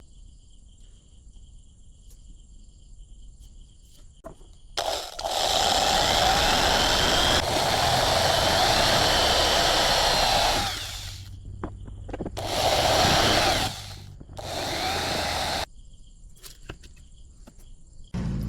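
A power tool running in three bursts: one of about six seconds, then two shorter ones, with quiet pauses between.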